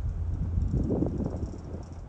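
Wind buffeting the microphone in uneven gusts on a ferry's open deck, strongest about a second in, over a steady low rumble.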